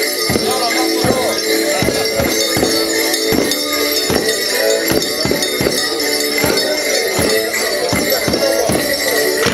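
A Border Morris dance tune played live, with held notes over a steady beat of about two and a half strokes a second, and jingling through it.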